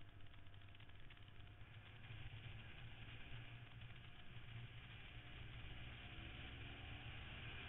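Faint motorcycle riding sound heard from a bike-mounted camera: a steady low engine drone under a rush of wind noise, the engine note gliding slightly as the road winds.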